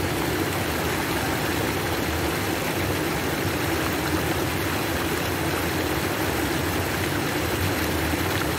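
Water gushing steadily from an inlet into a fish pond: a constant rushing noise with a low rumble, unchanging throughout.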